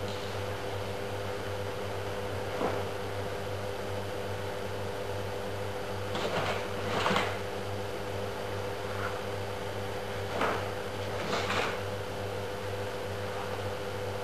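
Steady room hum with a few brief swishes from a karateka's kata techniques, the loudest coming in pairs about six to seven seconds in and again around ten to eleven seconds in.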